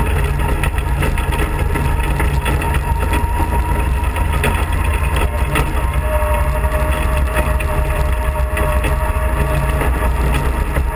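Off-road kart's engine running steadily at driving speed on a rough gravel road, with frequent small rattles and knocks from the bumpy ride. A thin whine comes in about halfway through for a few seconds.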